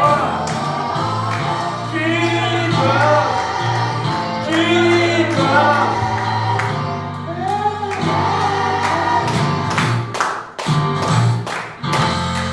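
Gospel music: a choir singing with instrumental accompaniment, sustained low bass or organ notes and a steady drum beat.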